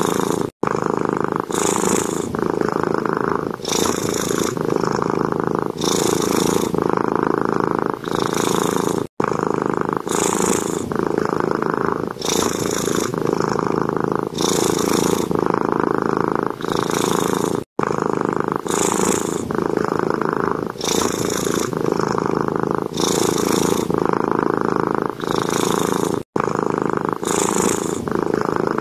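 Domestic cat purring loudly and steadily, pulsing with its breaths about every two seconds. The sound cuts out for an instant about every eight and a half seconds.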